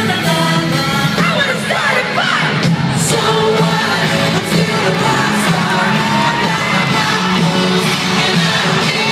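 Live pop concert in an arena, heard from among the audience: an amplified band and a lead singer, with fans yelling and cheering over the music.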